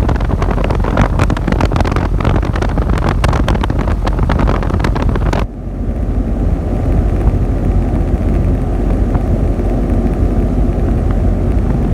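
Rheem 5-ton outdoor air-conditioner unit running, its condenser fan and compressor making a steady low hum with a few held tones. For the first five seconds or so air rushes and crackles over the microphone; it cuts off abruptly, leaving the hum clear.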